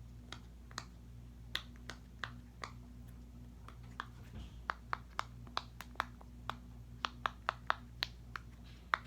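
Bubbles of a silicone pop-it fidget toy being pressed one after another, each giving a sharp pop. The pops are spaced out at first and come faster, about three a second, in the second half.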